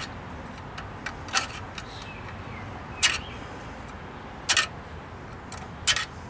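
A screwdriver turning the rear parking-brake shoe adjuster of a 2002 Chevy TrailBlazer, making about five sharp metallic clicks, roughly one every second and a half, as the adjuster is worked a notch at a time.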